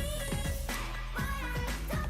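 Background pop music with a deep, steady electronic beat and a pitched synth line.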